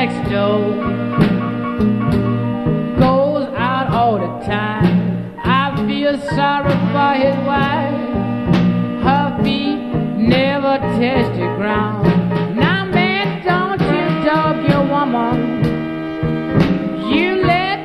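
Electric blues recording with guitar and a steady beat, bending melody lines running over the rhythm.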